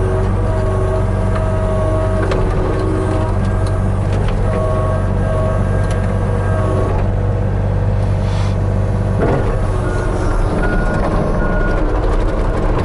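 Hitachi 35U mini excavator's diesel engine running at raised throttle, with hydraulic whine rising and dropping away as the controls are worked. Stone clicks and a short scraping rush come about eight to nine seconds in, and near the end a higher tone pulses on and off.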